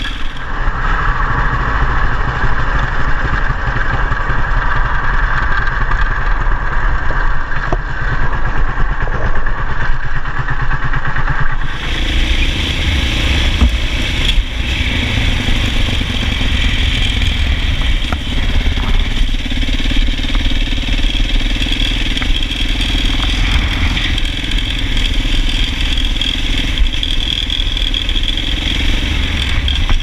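KTM 690 Enduro R's single-cylinder engine running steadily under way on a dirt track. The tone changes abruptly about twelve seconds in.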